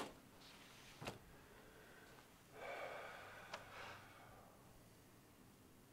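Near silence: quiet room tone with a couple of faint clicks near the start and a soft, breathy rustle lasting about a second and a half around the middle.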